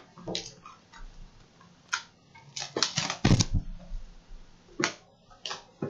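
Hands opening a sealed Panini Spectra trading card box: a series of short rustles, scrapes and taps of cardboard and wrapper, with a heavier thump a little past three seconds.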